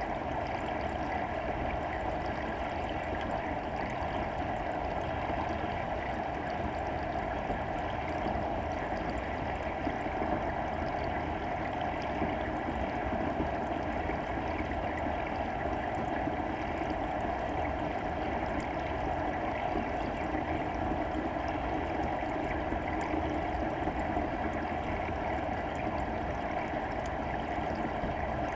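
Steady underwater water noise, an even rushing hiss without any distinct events, picked up by a submerged camera.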